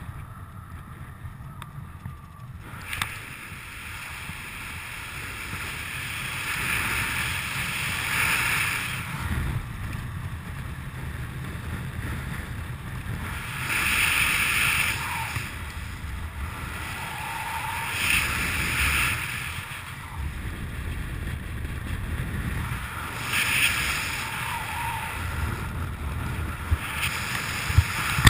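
Wind rushing over the camera microphone during a descent under an open parachute canopy: a steady low rumble that swells into louder gusts every few seconds.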